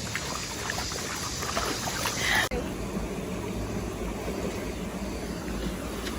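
Stream water running for about two and a half seconds, then a sudden cut to a low, steady rumble.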